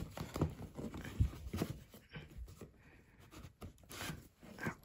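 Cardboard and paperboard being handled: hands rubbing and scraping against a gift box held tight inside a cardboard shipping box, with scattered soft knocks, the strongest about a second in.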